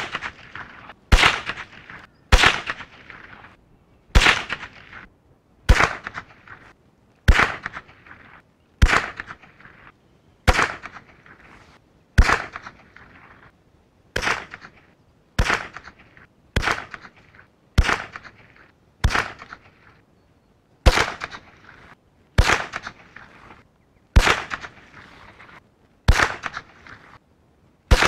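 Anschutz 1761 bolt-action .22 LR rifle firing a long series of single shots, about one every one and a half seconds. Each sharp report trails off in a short echo.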